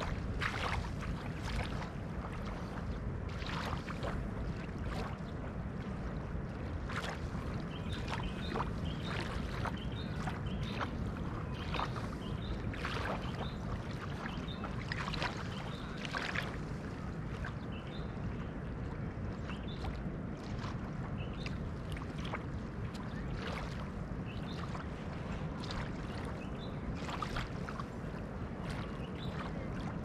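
Small waves lapping and fizzing at the edge of a calm sea on a sandy beach, with irregular little splashes over a steady low rumble.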